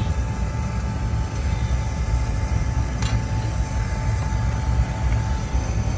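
Oil burner on a Weil-McLain four-section oil boiler firing just after ignition: a steady low rumble of flame and blower, with a faint steady whine and a single click about three seconds in.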